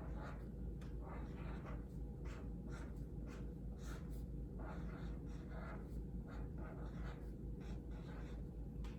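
Writing by hand on an anchor chart: a run of short, irregular scratchy strokes on paper, over a steady low hum.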